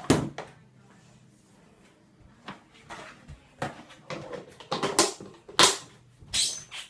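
Close handling noise: a sharp knock, then after a quiet pause a scatter of irregular clicks and knocks with short rustles toward the end, as objects are handled and set down near the microphone.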